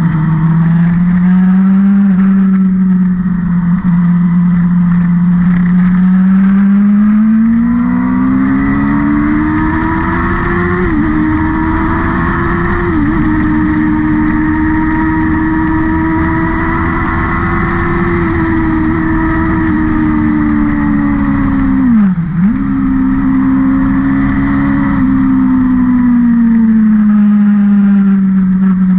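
A race-track vehicle's engine under hard throttle. Its pitch climbs as it accelerates, with brief sharp dips at gear changes about eleven, thirteen and twenty-two seconds in, then it falls as it slows near the end.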